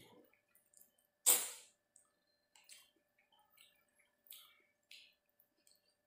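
Close-miked wet mouth sounds of a man eating curry-soaked chicken by hand. There is one loud wet mouth noise about a second in as he sucks and bites at the chicken piece, then a few softer lip smacks and clicks.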